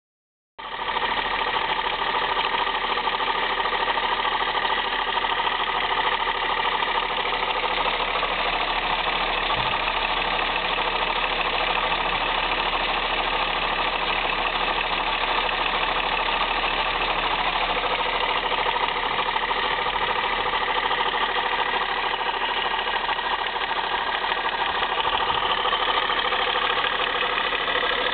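Volkswagen VR6 engine running steadily at an even speed, making a strange noise that its owner cannot place.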